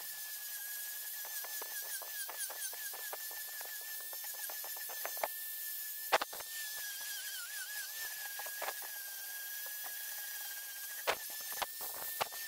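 Angle grinder with a sanding disc working the rough bark edge of a birch bowl spinning on a wood lathe: a steady high whine that wavers and dips briefly in pitch as the disc bites, with a hiss and scattered ticks and a few sharper clacks from the uneven edge striking the disc.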